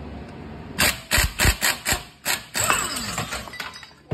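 Impact wrench working the top nut of a strut clamped in a spring compressor, in a series of short bursts about a second in, followed by a falling whine near the end.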